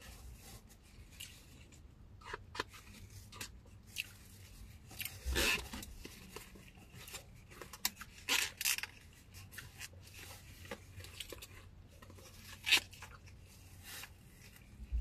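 Eating sounds: a utensil scraping and clicking in a takeout container of vegetable fried rice, in scattered short scrapes and clicks, the longest scrapes about five seconds in and again around eight and a half seconds.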